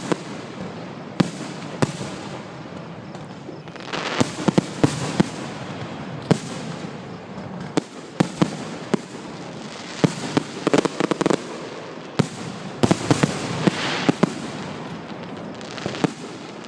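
Aerial fireworks display: sharp bangs of shells bursting at irregular intervals over a continuous crackling, with denser flurries of bangs and crackle several times.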